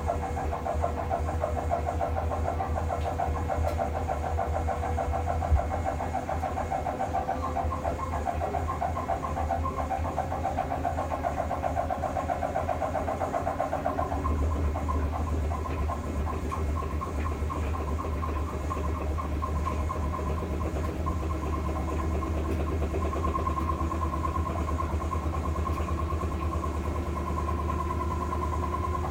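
LG WM3570HWA front-load washing machine in its spin cycle: a steady mechanical hum and rumble, with tones that slowly rise in pitch as the drum speeds up. The low rumble grows stronger about halfway through.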